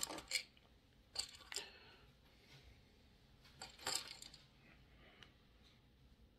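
Lego pieces being handled and fitted together: a few faint, scattered plastic clicks and rustles, with a short cluster of them about four seconds in.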